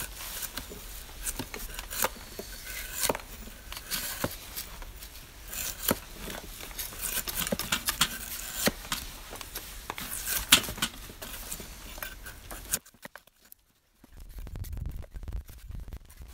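Drawknife shaving bark off a green wooden pole in repeated scraping pulls, mixed with sharp knocks of an axe striking wood on a chopping block.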